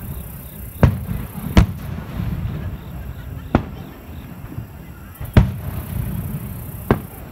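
Aerial fireworks shells bursting: five sharp bangs at uneven intervals, over a steady low rumble.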